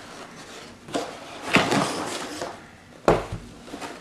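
Cardboard shipping box being handled and opened, with short scrapes and rustles, then a solid thump about three seconds in as a box is set down on the table.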